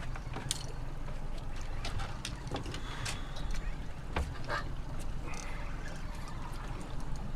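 Steady low rumble of a fishing boat at sea, with scattered sharp clicks and knocks of gear and tackle on board.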